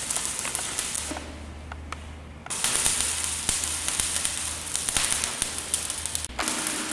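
Electric arc welding on a steel column: the arc's continuous crackling sizzle, which stops for about a second and a half near the start and then picks up again, over a low hum.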